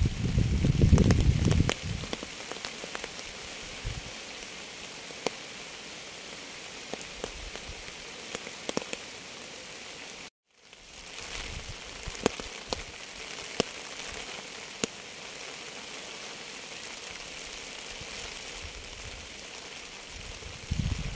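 Steady rain falling, with scattered single drops ticking sharply over the hiss. A loud low rumble fills the first two seconds, and the sound cuts out completely for a moment about ten seconds in before the rain resumes.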